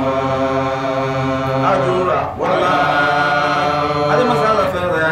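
A man chanting in long, held melodic phrases, with a short breath break about two and a half seconds in and a fresh phrase starting near the end.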